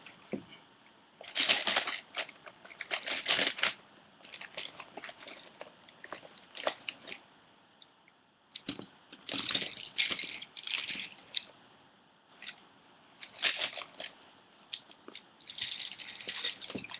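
Felt-tip pens and colouring pencils rattling and clattering against each other in several bouts as they are rummaged through, gathered up and dropped in a heap in a search for a black pen.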